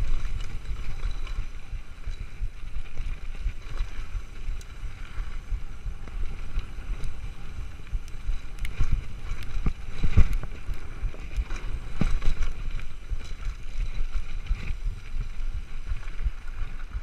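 Mountain bike riding down a rocky gravel trail: wind buffeting the microphone, tyres rolling over loose dirt and stones, and the bike rattling with sharp knocks over rocks, loudest about ten and twelve seconds in.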